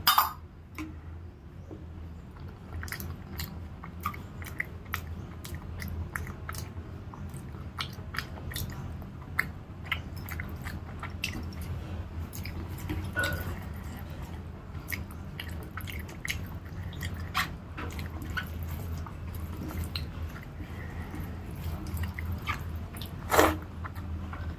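Close-up chewing and mouth sounds of someone eating rice, dal and curries, with many small wet clicks over a steady low hum. There is one louder crack near the end.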